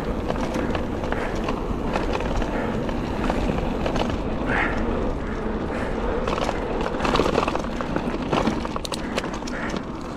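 Mountain bike rolling fast along a gravel path: continuous tyre noise and wind rumbling on the microphone, with frequent small clicks and rattles from stones and the bike.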